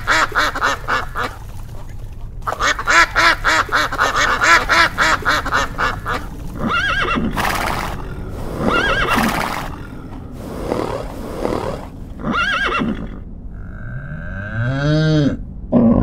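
Domestic ducks quacking in rapid runs, then a horse neighing several times. Near the end a cow gives one long low moo that rises and falls.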